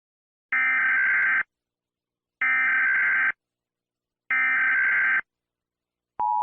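Emergency Alert System SAME header: three identical bursts of screechy digital data tones, each about a second long with a pause between them. Near the end the steady two-tone EAS attention signal begins.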